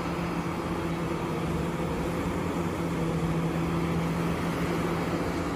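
Caterpillar 6015B hydraulic mining excavator's diesel engine running under load with a steady drone while the machine digs and swings its loaded bucket.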